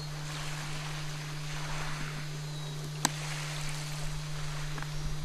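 Gentle water lapping on calm seawater at a rocky shore, a soft swelling wash, over a steady low hum. A single sharp click about three seconds in.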